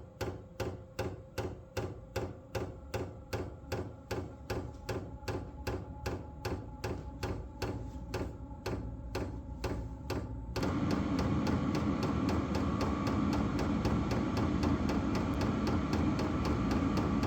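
Vevor diesel heater's fuel dosing pump ticking steadily, about three clicks a second, as it primes the fuel line. About ten seconds in, a louder steady running sound starts, with faster ticking continuing over it.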